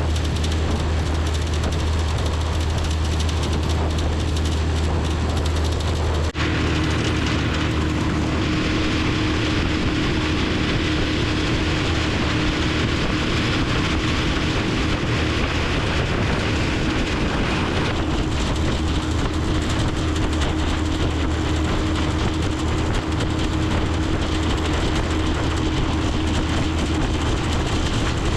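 Boat motor running steadily with the boat underway, with a loud, constant rush of wind and water noise. There is a brief break about six seconds in, after which a steady hum sits higher in pitch.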